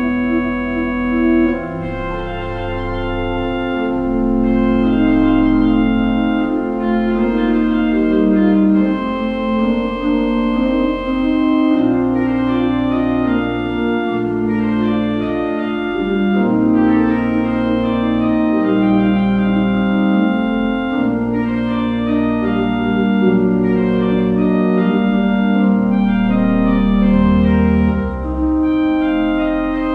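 Church organ playing slow, sustained chords over held deep pedal notes, the harmony changing every second or two.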